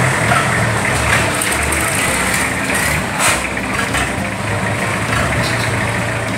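Motorboat engine running steadily with a low hum, and a brief sharp clatter about three seconds in.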